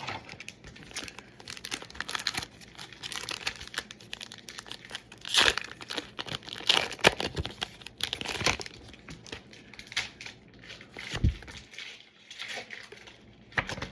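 Foil booster pack wrapper being crinkled and torn open by hand, in irregular rustling, crackling bursts that are loudest a few seconds in.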